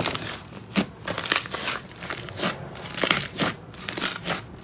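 Hands kneading and pressing a large lump of slime, making irregular crackling, crinkly pops, a couple or so each second.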